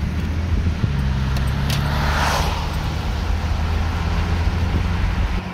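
A car driving on a wet road, heard from inside the cabin: a steady low engine and tyre hum. About two seconds in, another vehicle swishes past and fades.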